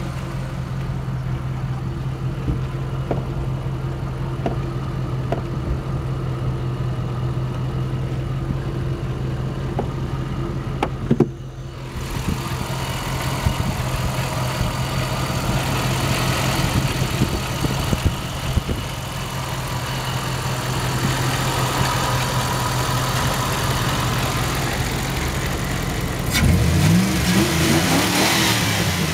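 Jeep Grand Cherokee engine idling steadily, then revved up and down a few times near the end.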